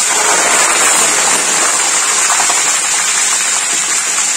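A steamed, marinated whole chicken deep-frying in very hot oil in a frying pan: loud, steady sizzling that eases slightly toward the end.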